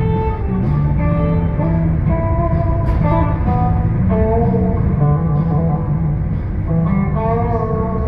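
Music with a guitar playing a melody over steady low notes.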